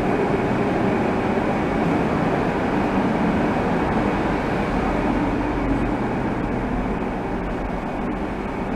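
Docklands Light Railway train standing at a platform with its doors open, giving off a steady hum and rumble from its onboard equipment that eases slightly toward the end.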